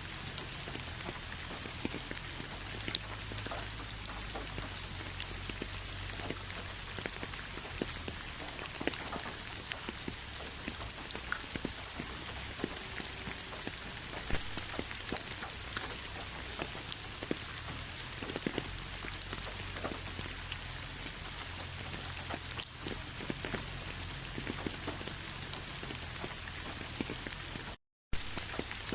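Steady rain falling, with many scattered drops tapping on a surface. The sound cuts out for a split second near the end.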